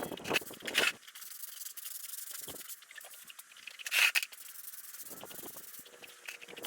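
Rough rubbing strokes over a hard surface with a steady hiss behind them, louder strokes near the start and again about four seconds in.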